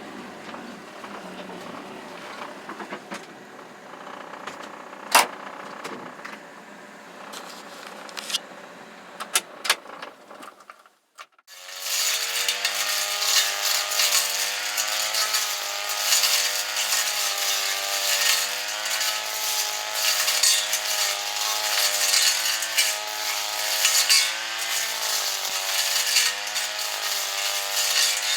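Faint rustling and scattered clicks, then about eleven seconds in a small handheld two-stroke engine cuts in loud at high revs, its pitch wavering up and down.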